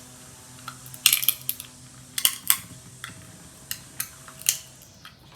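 Snow crab leg shells being cracked open: a string of sharp cracks and snaps, about seven in all, spaced unevenly.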